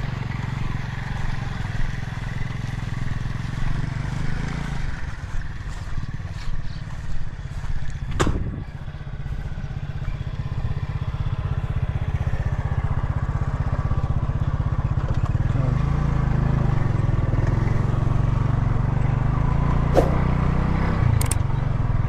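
Small motorcycle engine running as the bike is ridden along a rough dirt farm track, heard from on the bike. A few knocks and rattles come midway, and the engine runs louder in the last third.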